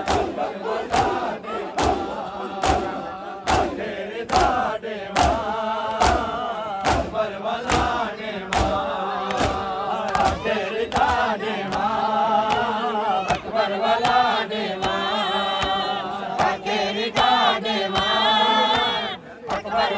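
A crowd of men chanting a noha in unison while slapping their chests with open hands in matam, the slaps landing about twice a second. About halfway through the slaps thin out and the sung chant carries on.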